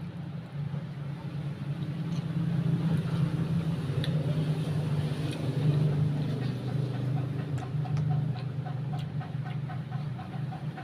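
A motor engine running steadily with a low drone, swelling louder over the first few seconds and then easing slightly, with a few faint clicks over it.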